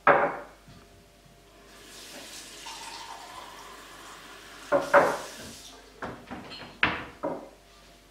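Kitchen tap running for about four seconds as a mug is filled with water, with a sharp knock just before it and a cluster of loud knocks and clinks at the sink near the end.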